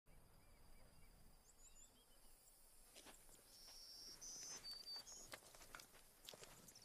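Faint rural outdoor ambience of birds chirping and insects calling: a few quick high chirps in the first two seconds, then short held high-pitched calls in the middle, with scattered light clicks in the second half.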